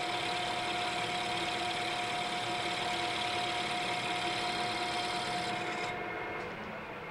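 Metal-working engine lathe running with a steady whine while it turns down a wooden pattern blank. About five and a half seconds in the high hissy part of the sound drops away and the machine sound grows quieter.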